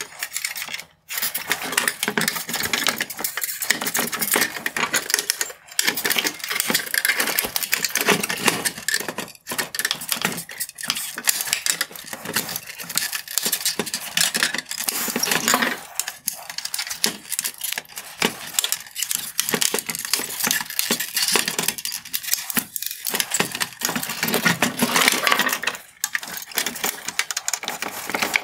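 A small flathead screwdriver prying and scraping at the plastic chrome trim and clear bezel of a Mercedes-Benz C-Class headlight, with a dense run of small plastic clicks, rattles and scrapes broken by a few brief pauses.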